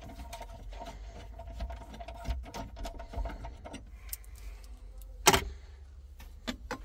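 Rapid clicking of a ratchet wrench undoing the 13 mm bolt of a car battery's hold-down bracket. The clicking stops after about four seconds, and a single sharp metallic knock follows a little after five seconds.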